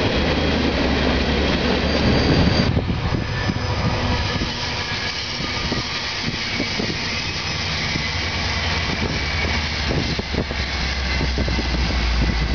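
A BNSF freight train of covered hopper cars rolling past with a steady rumble of wheels on rail. After a cut about two and a half seconds in, a Sounder bilevel commuter train passes, and its diesel locomotive's low engine hum grows stronger near the end.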